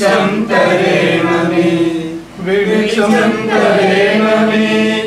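A group of voices singing a Malayalam Christian hymn together in long, held notes, in two phrases with a short break about two seconds in.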